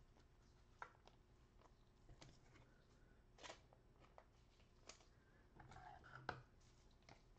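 Near silence: room tone with a few faint, scattered clicks and a soft rustle about six seconds in.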